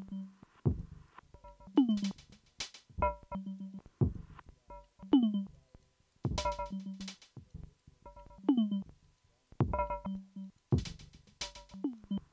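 Eurorack modular synthesizer playing a looping electronic drum pattern: kicks that drop sharply in pitch, about one a second, with bright hi-hat hits and short bell-like pitched percussion tones in between.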